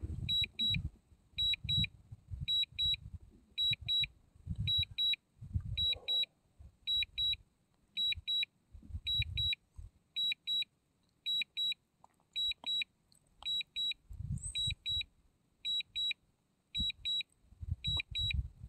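DJI Mini 2 remote controller beeping during an automatic return-to-home on low battery: quick high double beeps repeating at an even pace. Wind gusts buffet the microphone underneath.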